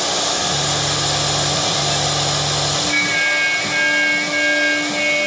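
Three-operation CNC router running under test: a steady hiss, with a low hum in two stretches during the first half. About three seconds in, steady high whining tones come in.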